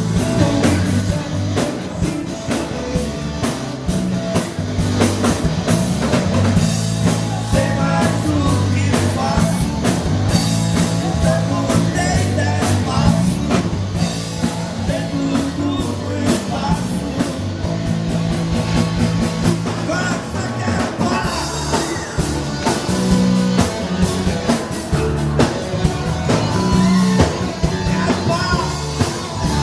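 A live band playing a rock-style song, with drum kit, electric guitar and bass and a singing voice.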